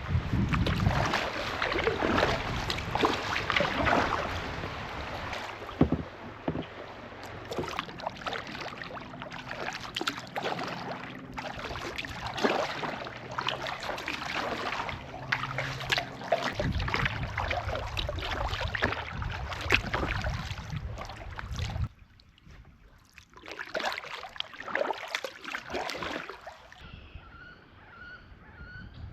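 Kayak paddle strokes splashing and dripping in river water, with wind rumbling on the microphone. The sound drops away suddenly about 22 s in, and near the end a bird chirps faintly in a quick repeated series.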